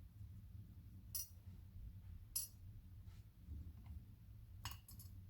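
Faint, sharp metallic clinks of small lock pins being handled and set down: two single clinks, then a quick cluster of them near the end.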